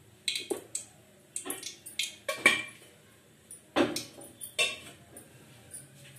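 Metal kitchen utensils clinking and knocking together in an irregular run of about a dozen sharp clinks over the first five seconds. The loudest come about two and a half and four seconds in, and a few fainter ones follow near the end.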